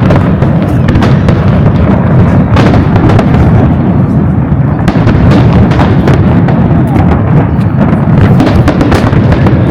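Fireworks going off in a dense barrage: continuous heavy booming with many sharp cracks and pops packed close together.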